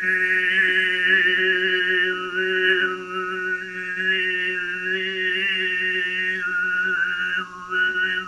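A man throat singing in the sygyt style (overtone whistling): a steady low drone note with a whistle-like overtone melody above it that moves between a few pitches, all in one held note.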